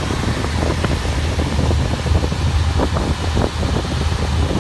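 Wind buffeting the microphone over a steady low machine hum.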